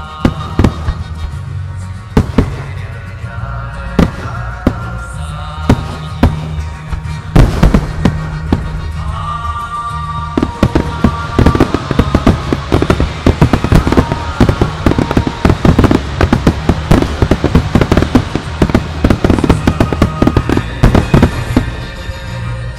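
Aerial firework shells bursting with sharp bangs over accompanying music. The bangs come one at a time for the first ten seconds, then become a dense, rapid barrage of bangs and crackle from about ten seconds in.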